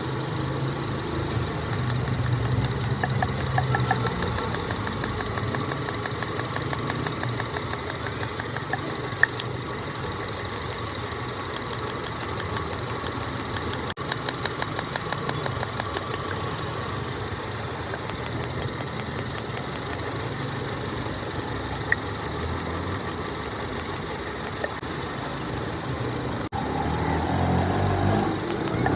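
Car engine idling during a check for an ignition coil misfire, with stretches of rapid, regular ticking; it gets louder near the end.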